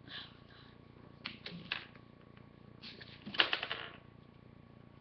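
Handling noise from small objects handled close to the microphone: a few separate clicks, then about three seconds in a short, louder run of rattling clicks.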